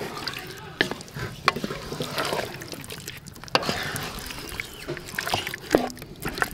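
A wooden spatula stirring marinated chicken pieces in a metal pot: irregular wet, squelching scrapes, with several sharp knocks as the spatula hits the pot.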